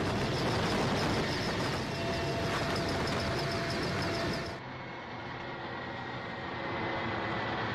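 Helicopter engine and rotor noise heard from inside the cabin: a steady, loud mechanical rush with a fast regular pulse. About four and a half seconds in it drops a little and sounds duller.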